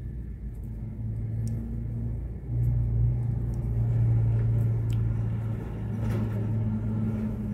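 A low, steady, engine-like rumble with a hum under it, swelling about two and a half seconds in and easing off toward the end.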